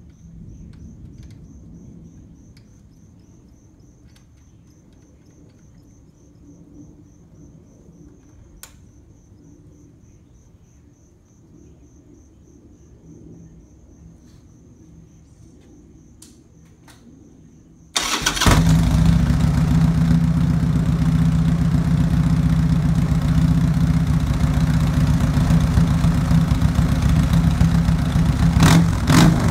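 Buell M2 Cyclone's 1200 Evolution V-twin starting about 18 seconds in, then idling loud and steady through a straight-pipe exhaust. Before it starts there is only a faint background with a high, evenly pulsing tone.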